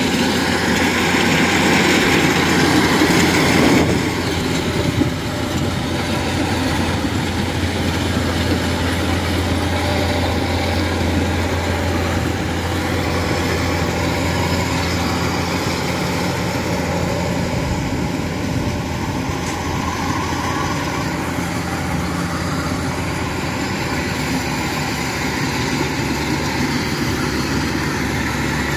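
Rice combine harvester's engine running steadily under load as the crawler machine cuts and threshes rice, a continuous deep hum that is a little louder over the first few seconds.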